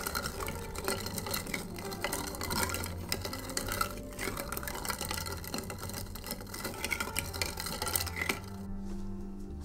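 Wooden spoon stirring frozen coffee ice cubes in a tall glass of iced coffee and oat milk: quick, irregular clinks and knocks of ice and spoon against the glass, stopping near the end.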